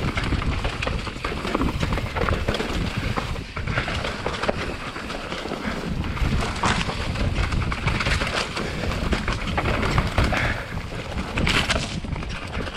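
Mountain bike riding fast down a dirt singletrack: wind buffeting the on-board camera microphone over tyres rolling on dirt and dry leaves, with frequent rattles and knocks from the bike over roots and bumps.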